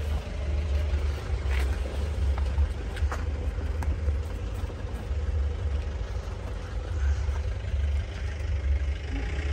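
Mahindra jeep engine idling steadily, with wind buffeting the microphone and a few light clicks.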